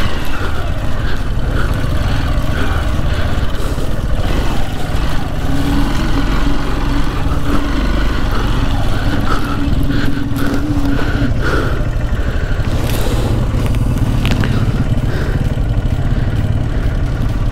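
Motorcycle engine running as the bike is ridden along a rough off-road trail, its note holding steady for several seconds in the middle.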